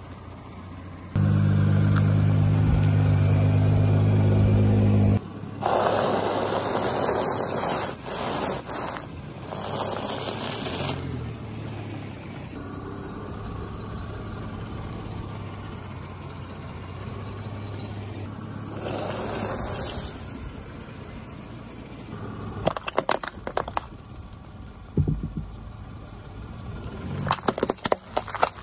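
A car rolling over and crushing a series of objects on asphalt. Its engine hums loudly and steadily for about four seconds, then come bursts of squashing, splattering and scraping, and near the end rapid cracking and crackling as hollow plastic eggs break under the tyre.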